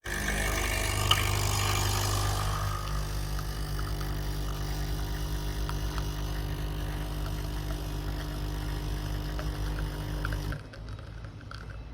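Nespresso Essenza Mini capsule machine's pump buzzing steadily as it brews. It starts abruptly and cuts off about ten and a half seconds in, leaving faint ticks.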